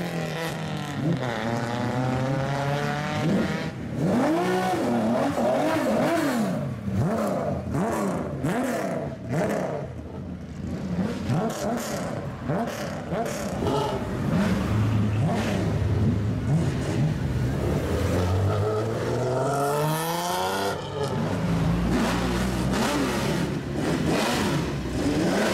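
Several modified old Japanese cars with loud, open exhausts revving as they drive off one after another. The engine notes rise and fall in repeated blips, with a steadier low drone for a few seconds a little past halfway.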